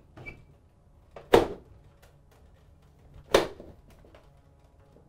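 Two sharp metal clunks about two seconds apart, each with a brief ring: a sheet-metal end plate being knocked into place in a ceiling light fixture.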